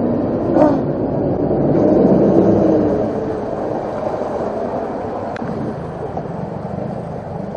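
A vehicle engine running steadily, swelling louder for a second or so about two seconds in.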